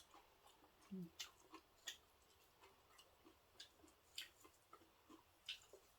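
Faint, scattered clicks and smacks of someone chewing food, irregular and a few per second at most, with a brief low hum about a second in.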